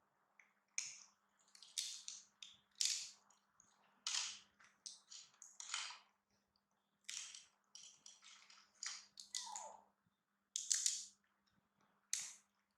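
A pet crunching a hard snack: sharp crackly crunches, one roughly every half second to a second, in uneven bunches, with a short falling squeak a little past halfway.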